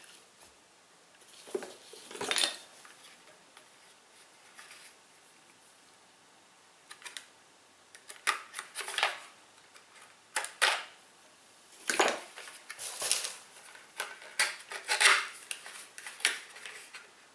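Hands opening a small pack of ampoules: irregular packaging rustles, scrapes and light clicks, sparse at first, with a quiet stretch, then busier in the second half.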